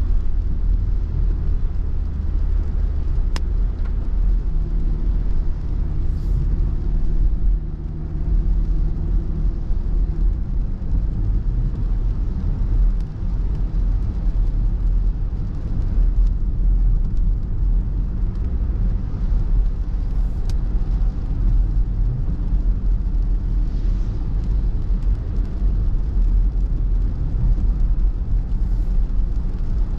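Steady low rumble of a car driving on a wet road, heard from inside the cabin, with a faint hum from the engine and drivetrain in the first several seconds.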